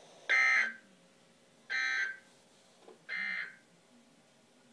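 Emergency Alert System end-of-message data tones: three short bursts of screeching, modem-like digital sound about a second and a half apart, each quieter than the last, signalling the end of the alert.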